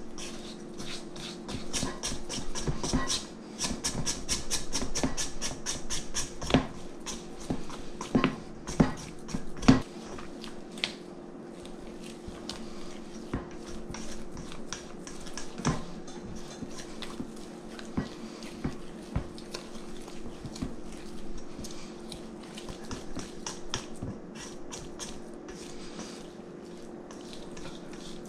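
Silicone spatula stirring and scraping a wet, shaggy bread dough in a mixing bowl: quick strokes several a second at first, a few sharper knocks against the bowl around the middle, then slower, sparser stirring. A steady low hum runs underneath.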